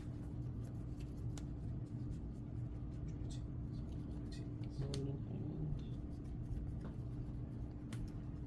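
Trading cards being handled on a table, with light scattered taps and clicks, over a steady room hum and faint background voices.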